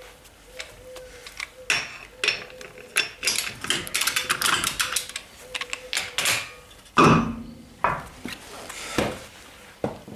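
Metal clicking and rattling of car wheel bolts being worked loose with a wrench and the wheel being handled, with a heavy thump about seven seconds in.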